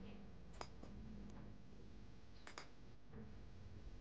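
Faint clicks of a computer mouse over low room tone: a single click about half a second in and a quick double click about two and a half seconds in.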